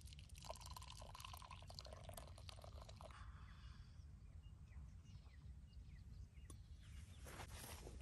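Faint sound of tea being poured from a small pan into a cup, with a few light clicks, in the first few seconds.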